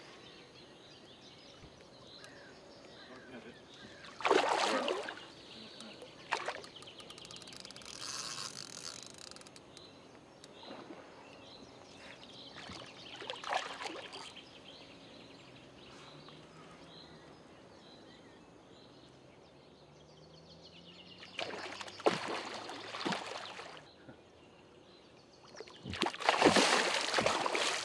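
A hooked fish thrashing and splashing at the surface of a lake as it is played on rod and line, in several separate bursts of splashing, the loudest about four seconds in and near the end.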